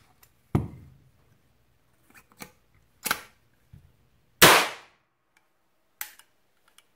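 Fedarm SS12 (Hatfield) single-shot break-action shotgun being worked by hand, with several clacks and clicks of the action. About four and a half seconds in comes the loudest sound, a sharp pop as the hammer sets off a shotshell primer. The lightened hammer spring is still striking hard enough to fire it.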